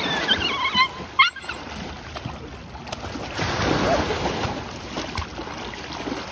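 Cavapoo puppy giving high-pitched yelps in the first second or so, one sharp rising yelp among them, then water splashing as she wades and lunges through shallow sea water after seashells.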